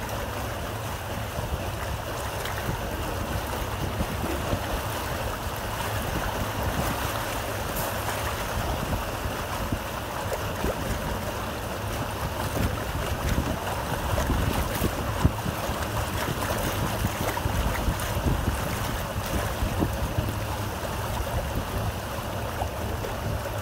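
River water rushing and splashing past a paddle steamer under way, a steady wash with a deep rumble beneath it and wind buffeting the microphone.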